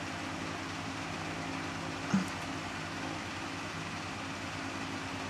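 Steady low hum of room tone, machine-like, as from a fan or air conditioner running. A brief short sound comes about two seconds in.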